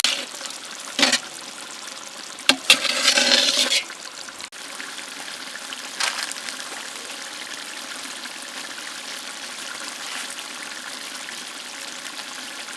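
Egg masala gravy simmering in a large pan, a steady bubbling sizzle. A spatula stirs and scrapes through it briefly about a second in and again from about two and a half to four seconds in.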